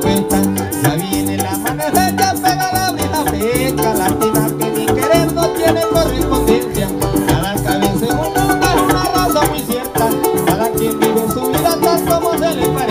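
Live llanera-style band playing: a harp picking a fast melody and bass line over a strummed cuatro, with maracas shaking in a rapid steady rhythm.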